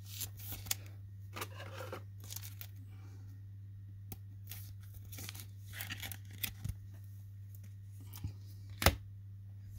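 Baseball cards and thin plastic card sleeves being handled, a card slid into a sleeve: soft rustles and light clicks, with one sharper click near the end, over a steady low hum.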